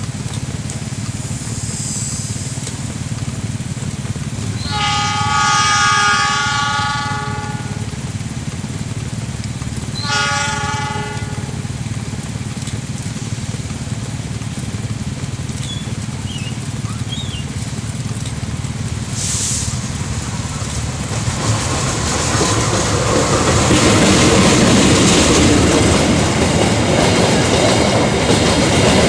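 Freight train hauled by a diesel locomotive, with a steady low engine rumble and two horn blasts: a long one about five seconds in and a shorter one about ten seconds in. From about twenty-two seconds in, the wheel and rail noise of the passing train swells loudly.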